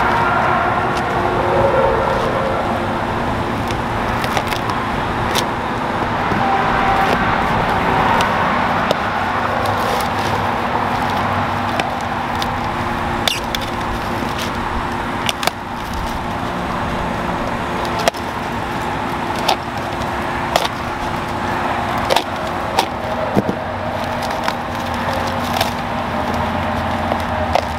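Foam and plastic packaging being handled and pulled around a battery pack, with scattered crackles and clicks, over a steady mechanical hum.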